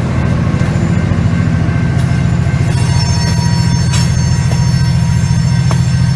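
Covered hopper cars of a freight train rolling past: a steady low rumble of steel wheels on rail. From about three seconds in, thin high wheel squeal joins it, with a few sharp clicks.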